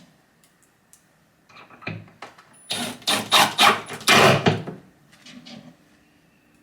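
Screws being driven through a Blum soft-close hinge backplate into the wooden cabinet side: a few short scraping, grinding strokes, weaker about one and a half seconds in and loudest from about three to four and a half seconds in, then dying away.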